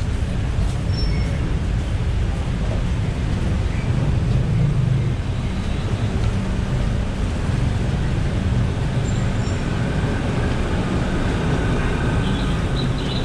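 Steady city traffic noise on a busy road: a continuous low rumble of passing vehicles, with a faint steady whine in the last few seconds.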